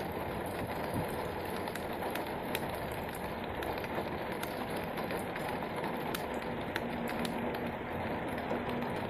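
Rain falling steadily on pavement, with scattered sharp ticks of drops striking close by.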